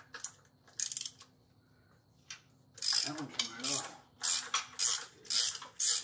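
Hand ratchet wrench clicking as it loosens the water pump bolts on a Ford flathead V8 block. A few single clicks come first, then steady ratcheting at about two strokes a second from about three seconds in.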